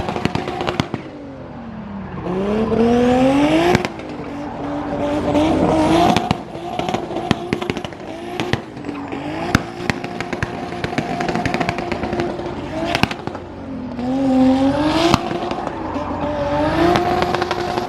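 Competition car's engine being driven hard, revs falling, then climbing steeply and dropping off suddenly several times, with the biggest climbs early on and again near the end. Tyre noise and sharp crackling and scraping sounds run under it.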